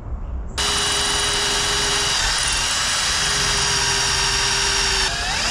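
Power drill boring a hole in the Humvee's bodywork. It starts about half a second in and runs steadily, with its pitch shifting near the end.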